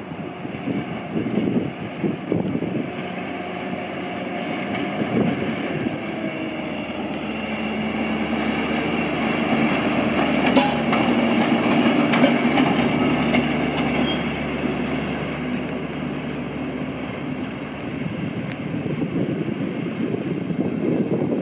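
Network Rail Class 73 electro-diesel locomotive 73952 passing close by under diesel power, running light: a steady engine drone that grows louder to a peak about halfway and then eases as it moves away. Around the peak, wheel clicks sound over the rail joints.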